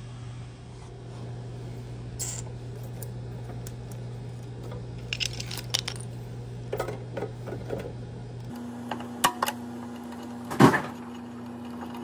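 Metal hand tools clicking and clinking against the copper refrigerant lines at a refrigerator compressor, with one sharp snap near the end. A steady low hum sits underneath and shifts pitch about two-thirds of the way through.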